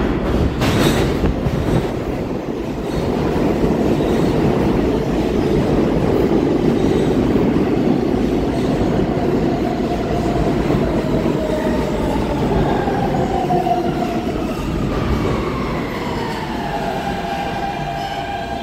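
R160B subway train pulling into the station: loud rumble and rattle of steel wheels on the rails, and from about two-thirds through a falling electric whine from its AC traction motors as it brakes to a stop.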